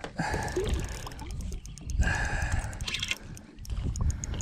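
Water sloshing and splashing with irregular dull knocks against a small boat's hull while a hooked barramundi is fought close to the boat.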